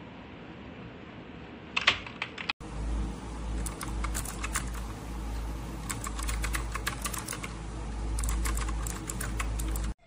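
SIGNO KB-738 INFESTA mechanical gaming keyboard being typed on, in quick runs of sharp key clicks. A few clicks come near two seconds in. From about two and a half seconds in, a steady low hum sits under further bursts of typing.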